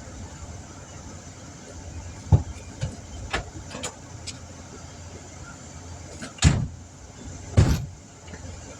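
A handful of sharp knocks and clunks from metal tools being handled and set down, the loudest two near the end, over a low steady hum.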